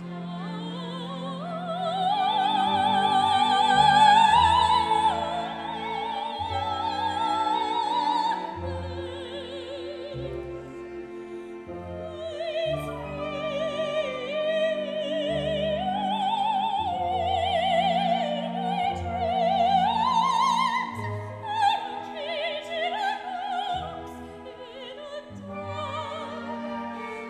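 A soprano singing opera with wide vibrato over an orchestra. Her line climbs to its loudest high notes about four seconds in and peaks again later.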